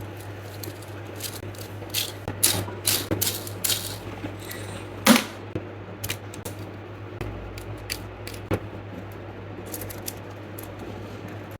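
3D-printed plastic chain fidget toy being handled, its links clicking and clacking at irregular intervals, with the loudest clack about five seconds in.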